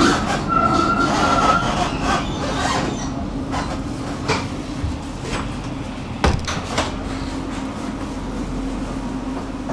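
A city tram running on its rails. The wheels squeal briefly in a high tone near the start, then it rolls on with a few sharp knocks and a steady low hum.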